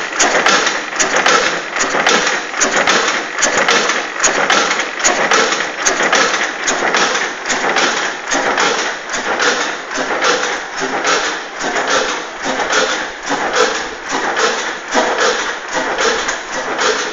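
Richard Hornsby Akroyd hot-bulb engine of an 1896–97 20 hp tractor running, with a rapid, even mechanical clatter of knocks from the engine and its valve gear.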